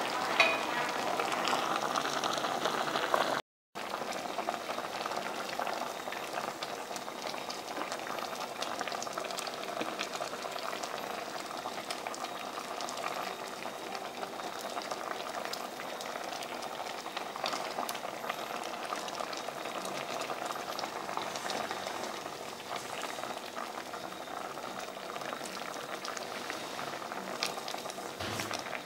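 Brown-sugar braising sauce of climbing perch boiling vigorously in an aluminium pot, a steady bubbling that cuts out for a moment about three and a half seconds in.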